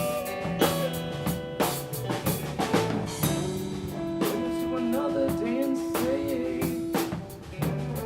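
Live rock band playing an instrumental passage: drum kit hits with bass drum and snare under sustained guitar notes, one of them bending up and down in the middle.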